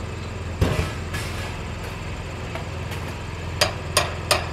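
Hammer blows on the stave silo: a single sharp hit about half a second in, a lighter one at about a second, then a quick run of three strikes near the end. A steady low engine idle runs underneath.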